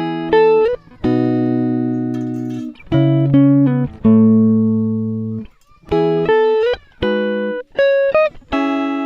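Background music: a guitar playing held chords and single notes in short phrases, some notes bent upward in pitch.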